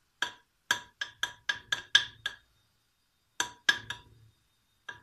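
Stirring a glass jug of iced soda drink: sharp clinks against the glass, about four a second for two seconds, then a pause and three more clinks.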